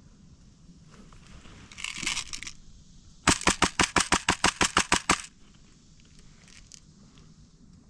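A brief rustle about two seconds in, then an airsoft gun firing a rapid string of about fourteen shots, roughly seven a second, lasting about two seconds.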